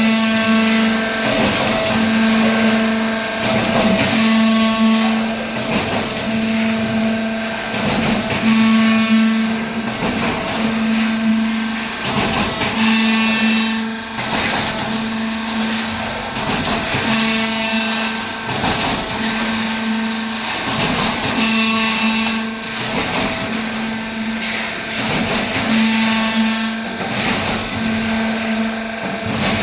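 Small concrete pump running: a steady motor hum broken by a knock about every two seconds as the pump strokes.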